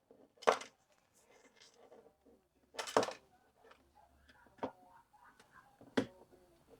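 Sharp plastic clicks and knocks as a replacement arm is handled and fitted onto a BEZGAR BD901 drone body. There are four separate clicks, the loudest a double about three seconds in.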